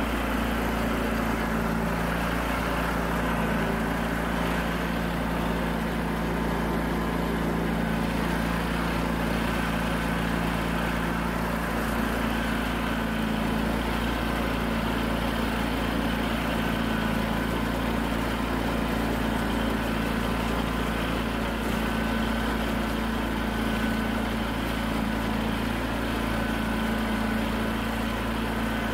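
John Deere 317 garden tractor's twin-cylinder engine running steadily at a constant speed while the tractor drives through snow.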